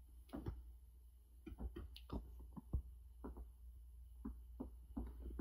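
Faint, irregular clicks and light knocks, about a dozen spread unevenly, over a low steady hum.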